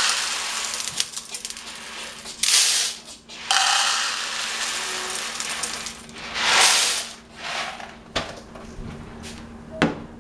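Dry elbow macaroni poured from its cardboard box into a measuring cup and tipped into a pot, the hard pasta rattling in several pours. Two sharp knocks come near the end.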